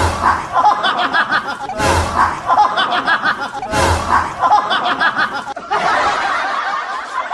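Many people laughing together, with three sudden booming hits about two seconds apart in the first half.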